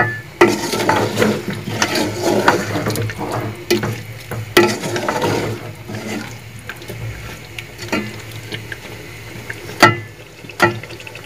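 Wooden spoon stirring a thick mix of chicken, potatoes and tomatoes as it fries in an aluminium pot, scraping and knocking against the metal in an irregular rhythm, busier at first, with a couple of sharper knocks near the end.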